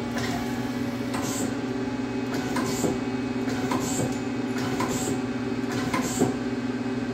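Nakamura-Tome TMC-15 CNC lathe's 10-position tool turret indexing over and over, a short indexing sound about once a second, over the steady hum of the running machine.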